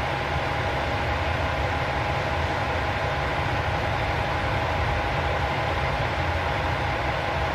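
Kyoto Tango Railway KTR8000 diesel railcar idling at a standstill: a steady low engine rumble with a steady high whine over it.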